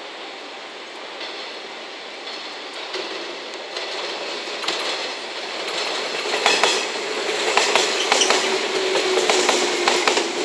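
A JR West 381 series electric limited express train approaching and running past close by, growing steadily louder. Its wheels clatter over rail joints and points in a run of sharp clicks, over a steady whine.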